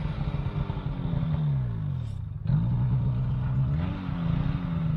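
Snowmobile engine running and revving, its pitch sinking over the first two seconds, then running steadily with a short rise in revs about four seconds in.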